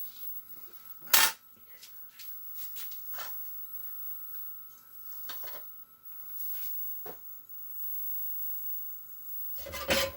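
Scattered clicks and taps of tools and parts being handled at a workbench, one louder knock about a second in and a soft bump near the end, over a faint steady electrical hum.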